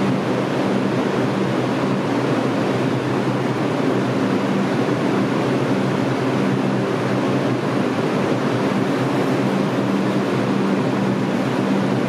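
R142 subway train standing in the station with its doors open, giving off a steady low hum under an even hiss of noise.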